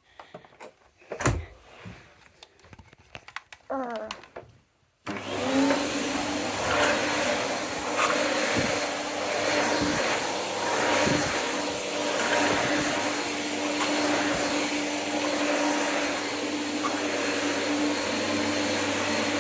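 A corded vacuum cleaner switches on suddenly about five seconds in and runs steadily, its motor holding one pitch. Before that there are a few soft clicks and one thump.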